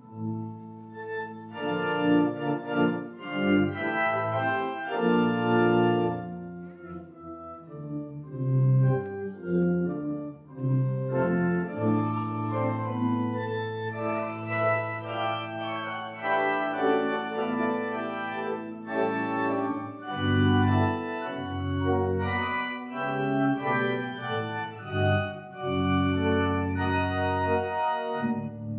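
Pipe organ playing a slow piece in sustained chords, softer for a few seconds about a quarter of the way in.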